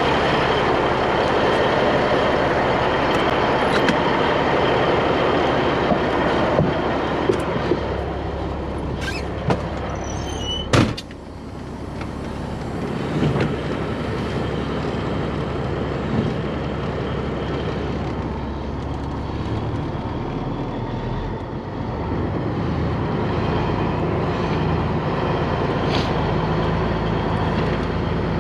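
Diesel engine of a Peterbilt 362 cabover tractor running steadily, heard from the steps and then from inside the cab. A sharp bang about eleven seconds in, as of the cab door shutting, after which the engine is quieter.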